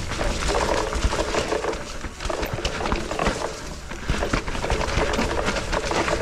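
Mountain bike riding down a muddy, root-strewn trail: the tyres, chain and frame rattling and knocking over roots in quick irregular clicks, over a steady low rumble.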